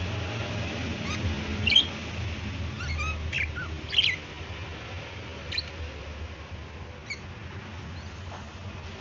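Pet budgerigars chirping in short, sharp calls, a few loud ones around two and four seconds in and sparser chirps after, over a steady low hum.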